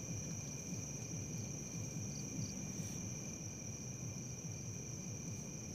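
Night insects trilling steadily in two high, unbroken tones, with a short doubled chirp repeating every couple of seconds, over a low rumble.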